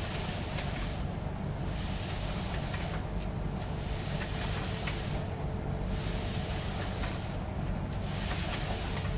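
Rhythmic rustling hiss from a person wearing a disposable respirator under a fit-test hood. It swells and drops about every two seconds over a steady low room hum.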